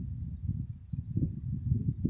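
A woman snoring in her sleep: a low, fluttering rattle that swells and eases.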